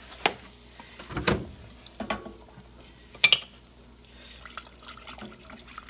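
Milk being added to a hot roux in a saucepan and stirred: liquid sloshing, broken by about four sharp knocks of utensils against the pan, the loudest about three seconds in.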